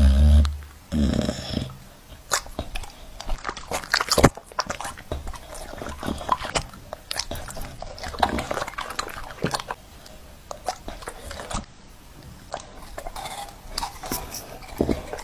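A dog chewing and eating, with irregular wet smacks and clicks of the jaws and teeth.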